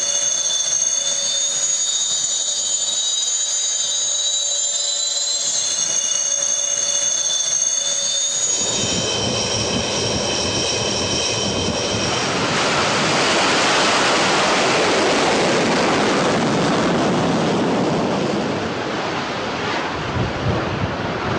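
Sukhoi Su-33 jet engines: first a whine of several high steady tones over a lower hum. About eight seconds in, a loud roar takes over and the whine fades out. The roar is strongest around the middle and eases a little near the end.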